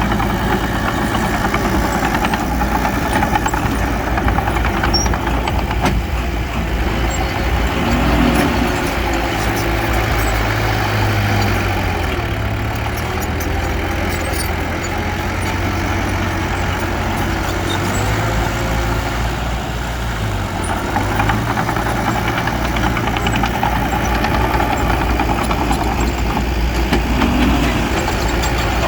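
Heavy earthmoving machinery's diesel engine running steadily, with slight rises and falls in engine speed.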